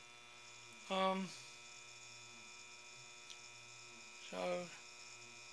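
Faint steady electrical mains hum, with a man's voice making two short sounds, about a second in and again about four and a half seconds in.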